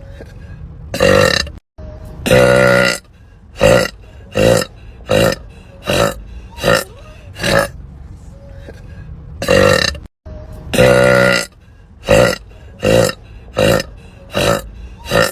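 Women burping loudly, one burp after another, about fifteen in all. Most are short, and two near 2.5 and 11 seconds in are longer and drawn out.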